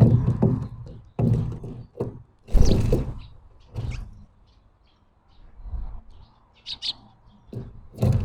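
Small birds chirping in short calls, among loud thuds and scuffling close to the microphone.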